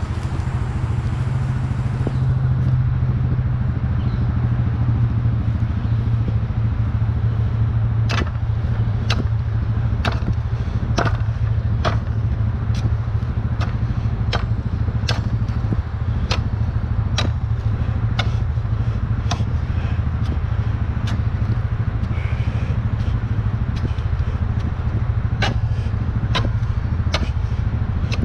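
An engine running steadily at idle, a low even hum. From about a third of the way in, sharp clicks come roughly once a second.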